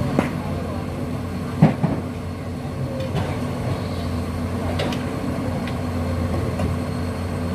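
Tracked excavator's diesel engine running at a steady idle, with a few sharp knocks over it, the loudest about a second and a half in.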